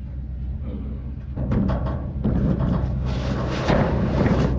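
Truck engine idling with a steady low hum while a metal hot water heater tank is shoved and scraped up onto the truck bed. The scraping grows louder and harsher from about halfway in.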